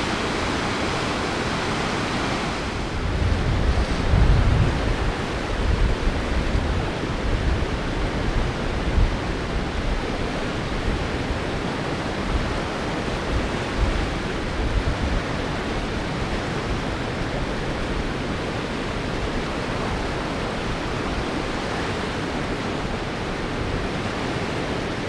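Rushing river rapids in high water, a steady roar of churning water over rocks. From about three seconds in, wind buffets the microphone in uneven gusts for roughly ten seconds, then eases.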